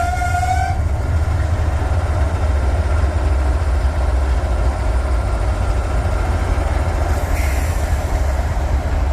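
A train rolling past with a steady deep rumble. A locomotive horn's held note, sounding from before, cuts off just under a second in.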